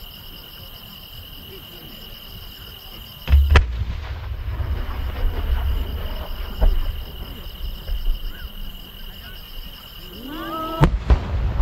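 A large aerial fireworks shell fired from its mortar with a deep thump about three seconds in, a rolling echo following as it climbs, then bursting with a sharp boom near the end. Insects chirp steadily beneath it until the launch.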